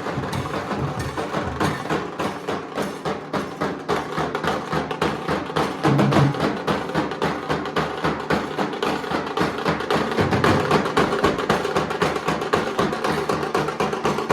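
Nashik dhol drumming: dhol drums beating a fast, dense rhythm of sharp strokes, with a louder burst of playing about six seconds in.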